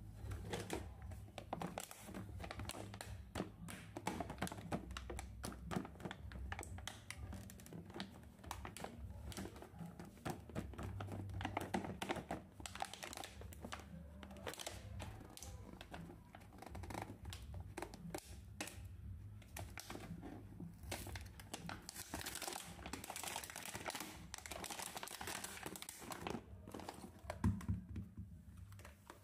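Clear plastic toy packaging crinkling and crackling as hands handle and open it, with a louder knock near the end.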